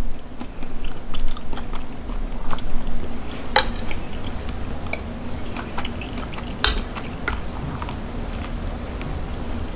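Close-up chewing and mouth sounds of a person eating a mouthful of vegetables. Two sharp clinks of a metal fork against a ceramic plate come a little past a third of the way in and again about two-thirds through.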